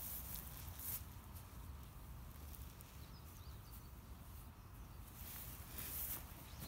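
Quiet outdoor ambience: a steady low rumble with a few soft rustles, and faint small bird chirps about halfway through.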